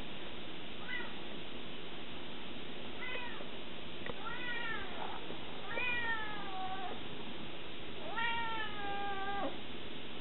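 A cat meowing five times, the calls growing longer: short rising meows at first, then two drawn-out meows of over a second each in the second half.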